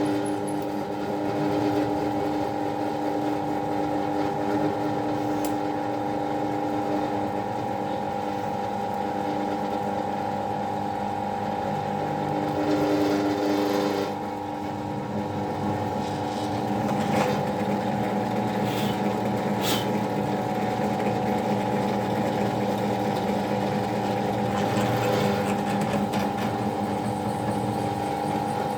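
Electric power tool motor running steadily, with a few brief ticks over its hum.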